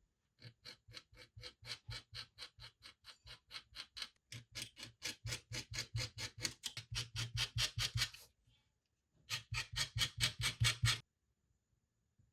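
Rapid, even back-and-forth rubbing strokes on leather, about four or five a second, in a long run and then, after a brief pause, a shorter run.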